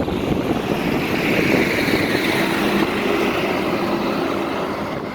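Road traffic noise with wind on the microphone; a vehicle engine hum stands out around the middle and fades near the end.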